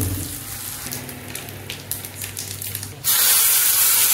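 Mustard seeds, dal, chillies and curry leaves crackling faintly in hot oil in a small kadai. About three seconds in, a sudden loud hissing sizzle as the hot tempering is poured into the pot of rasam.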